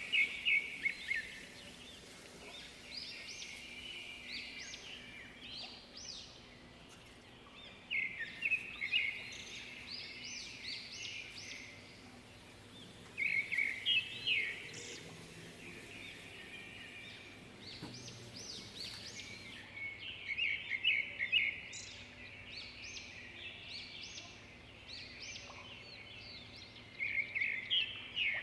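Songbird singing: short bursts of quick, high chirping notes every few seconds, over a faint steady hum.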